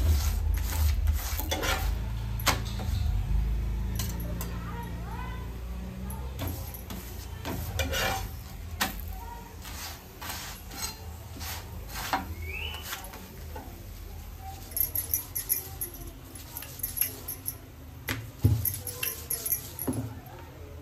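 A metal spatula scraping and tapping on a cast-iron tawa as a chapati is pressed and turned on it, giving a string of irregular clicks and scrapes. A low rumble runs under the first few seconds.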